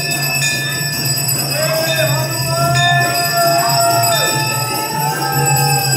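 Voices singing long, drawn-out notes that glide up and down, with bells ringing and a steady low hum underneath.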